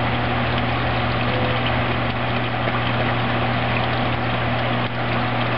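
Submersible water pump running in an open tub of water, feeding an aeroponics system's spray pipe: a steady electrical hum over the churning and splashing of the water.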